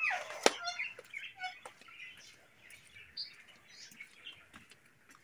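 Small birds chirping in short, scattered high notes, with one sharp knock about half a second in.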